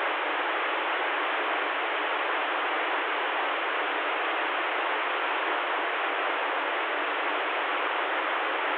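CB radio receiver putting out steady static hiss on an open channel between transmissions, a thin, even hiss with no voice in it.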